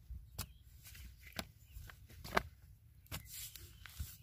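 A metal digging blade chopping into dry, cracked mud and breaking off clods: about five sharp knocks roughly a second apart, the loudest about two and a half seconds in, over a low rumble.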